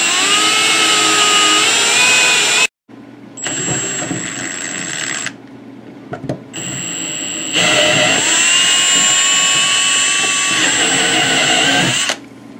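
Power drill boring an auger bit into a laminate countertop, its motor whining and shifting in pitch as the bit bites into the wood core. It stops abruptly about 3 seconds in, starts again, eases off for a couple of seconds, then runs hard again until it stops near the end.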